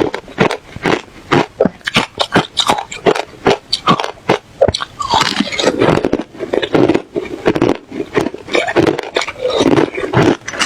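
A person chewing ice close to the microphone: a rapid run of sharp, crisp crunches, turning to denser grinding crunches about halfway through.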